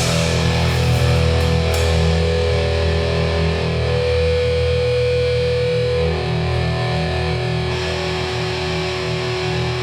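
Distorted electric guitars and bass holding long, ringing notes without drums, between hardcore punk songs. The held pitch shifts about six seconds in.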